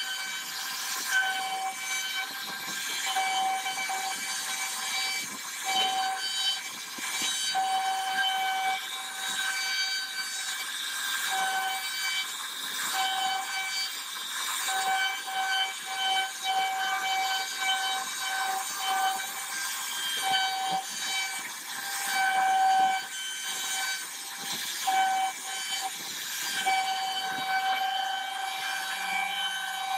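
CNC router spindle carving a wooden door panel: a high, steady whine from the spindle over the hiss of the bit cutting the wood, the whine dropping in and out many times as the cut goes on.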